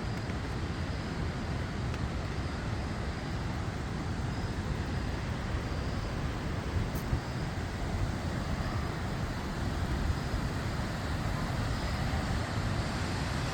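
Steady car road and engine noise heard from inside a moving car.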